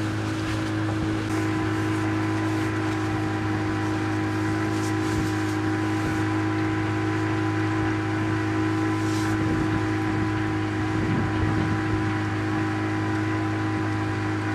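Boat engine running at a steady speed, a constant drone with several unchanging tones, over a hiss of water and wind.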